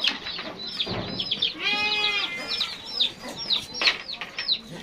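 Farmyard animal sounds: a goat bleats once, drawn out for about half a second, around two seconds in, over a constant run of short, high, falling chirps from birds.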